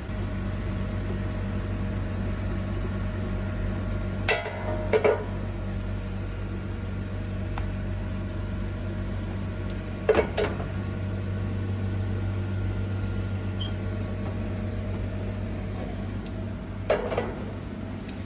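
Steady electric hum of a rotary CNC router with a few fixed tones over it, broken by sharp knocks and clunks about four, five, ten and seventeen seconds in as the curved rotary plywood is handled on the machine.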